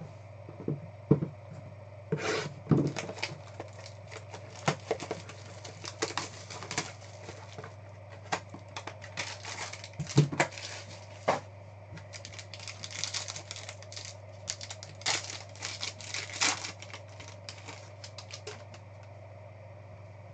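Hands handling trading cards, plastic card holders and pack packaging: irregular clicks, taps and short rustles and tearing of wrapper and cardboard, over a steady low hum.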